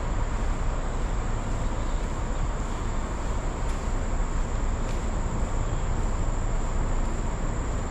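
Steady rushing outdoor noise with a constant high-pitched insect drone over it.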